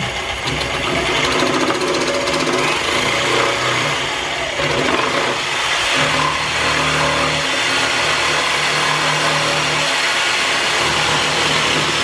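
Electric jigsaw running and cutting an ebony fingerboard blank, its blade sawing steadily through the wood as the saw is guided along a clamped straight edge.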